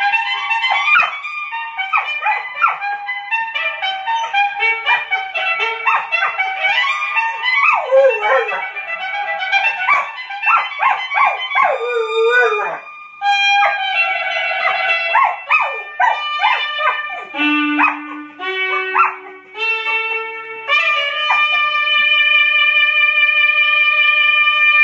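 Catahoula hound dog howling and yipping along to a trumpet fanfare, the opening theme of a TV show. The howls waver and slide in pitch over the trumpet's notes. Near the end the dog drops out and the fanfare finishes on a long held chord.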